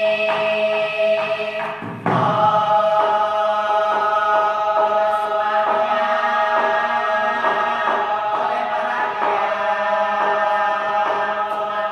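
Student choir singing held chords in parts, with a new chord entering about two seconds in.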